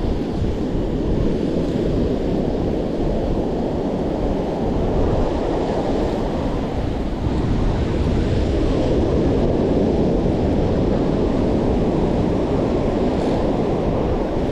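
Ocean surf washing steadily on the beach, with wind rumbling on the microphone.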